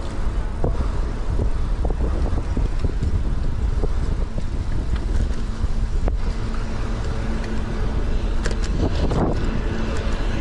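Wind rumbling steadily on the microphone of a camera riding on a moving road bike, with tyre noise from the pavement. A few sharp clicks or rattles come through, most of them near the end.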